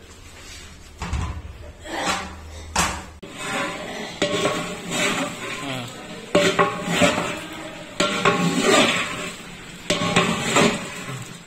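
Large aluminium cooking pot clanking as its lid is handled, then a metal ladle scraping and knocking against the pot while beef is stirred, in repeated sharp metallic strikes.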